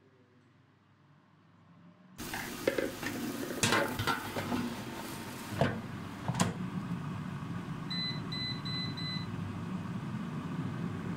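Digital air fryer: its fan starts up abruptly about two seconds in and runs with a steady rushing whoosh. The basket knocks a few times, and near the end the control panel gives a quick run of short beeps.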